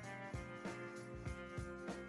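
Background music with a steady beat of about three drum hits a second under sustained instrument notes.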